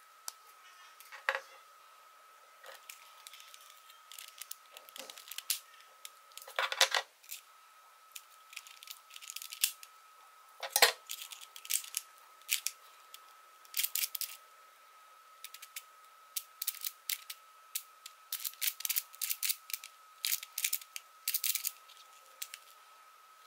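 Sharp plastic clicks and knocks as a GiiKER i3SE smart cube is handled and unclipped from its charging clip, then a quick run of clicks from the cube's faces being turned near the end. A faint steady high whine runs underneath.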